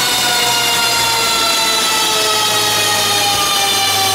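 Seat Leon Cupra 290's turbocharged 2.0-litre four-cylinder engine running hard on a chassis dyno, its pitch sliding slowly and steadily down as the revs fall.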